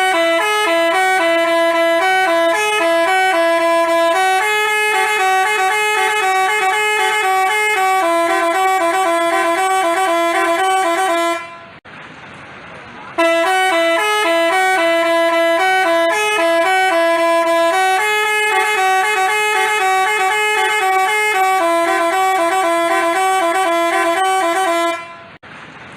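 Basuri telolet horn, a multi-tone musical bus horn, playing a stepping melody of held and quick notes. The tune runs about eleven seconds, breaks off briefly, then plays again and stops near the end.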